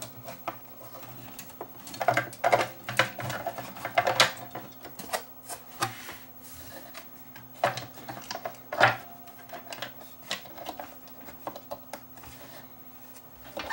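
Irregular clicks, taps and clatter of plastic and metal parts being handled and fitted together as a CRT monitor is reassembled, over a faint steady hum.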